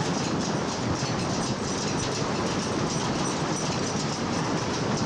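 A side-friction wooden roller coaster train running along its wooden track, heard from on board: a steady rumbling clatter of wheels on the rails.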